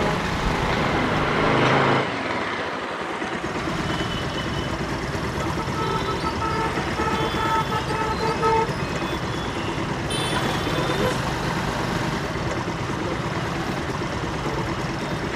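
Road traffic: motorbikes and other vehicles passing, with a swell as one goes by near the start and vehicle horns tooting in short blasts around the middle.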